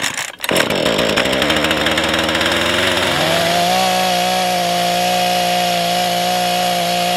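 Husqvarna two-stroke chainsaw catching on a pull of the starter cord, warm with the choke off, and running unevenly at first. About three seconds in it is revved to a steady high pitch as the chain cuts into a log.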